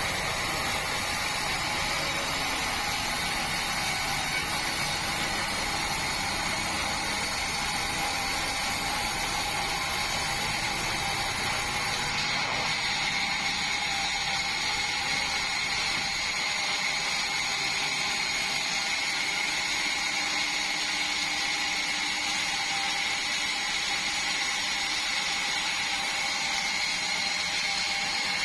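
Band sawmill running steadily while sawing a large meranti log: a constant mechanical whine over noise. The sound gets thinner partway through, losing its top hiss and then its low rumble.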